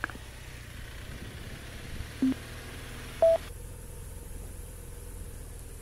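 Vehicle engine idling with a low steady hum. Two short electronic beeps about a second apart, the second higher and the loudest, and a faint hiss that cuts off suddenly just after the second beep.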